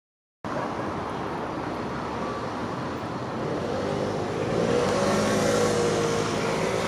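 City traffic: a steady wash of car noise that swells gradually as vehicles pass.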